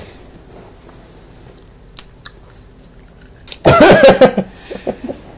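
Chewing and wet mouth clicks from sour hard candy: a few sharp smacks around two and three and a half seconds in. About four seconds in there is a short, loud voiced outburst, the loudest sound here.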